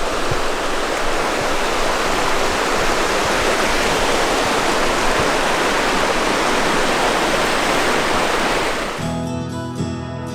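Steady rush of water. About a second before the end, acoustic guitar music takes over.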